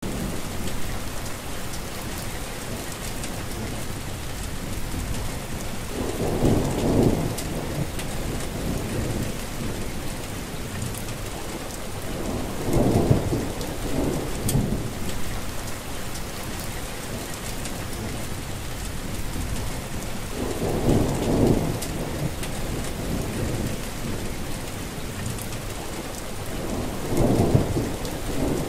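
Steady rain falling. A low rumble swells up and dies away four times, about every seven seconds.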